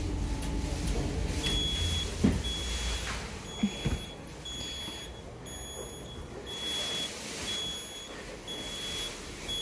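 Electronic beeping from a laundry machine: a high, steady beep repeating about every 0.8 seconds, starting about a second and a half in. Under it is a background hum that fades out about four seconds in, and there are a few light knocks.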